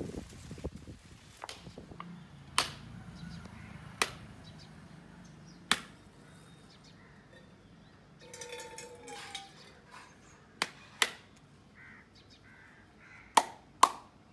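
A knife striking a dried, dehusked coconut held in the hand to crack its shell: about eight sharp knocks, spaced a second or more apart, with two quick pairs near the end.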